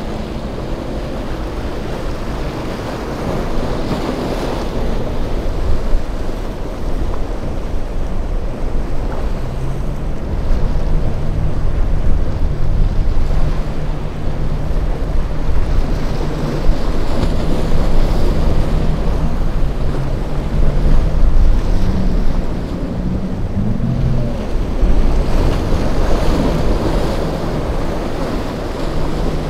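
Outboard motors of small boats running through rough inlet water, a steady engine drone heard mostly through the middle, over the wash of breaking waves and wakes, with wind buffeting the microphone.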